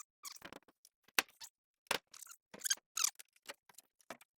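A run of short, irregular clicks, taps and scrapes, with a brief squeaky rub about three seconds in, from a side door and its rough frame being handled and worked while the door is fitted.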